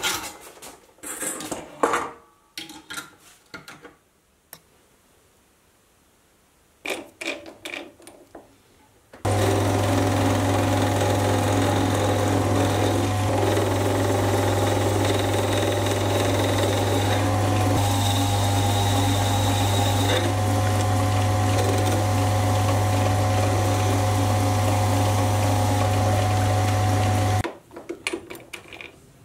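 Sieg C3 mini metal lathe running while a carbide tool faces the cut end of a 12 mm steel socket held in the chuck. It is a steady, loud motor hum with a higher whine, lasting about 18 seconds and starting and stopping abruptly. Before it come scattered metal scrapes and clicks, and near the end clicks of the chuck being loosened.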